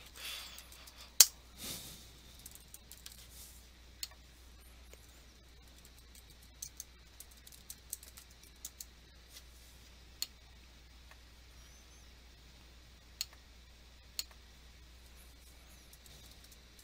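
Scattered keystrokes on a computer keyboard and clicks of a mouse, irregular and sparse, the loudest about a second in, over a faint steady low hum.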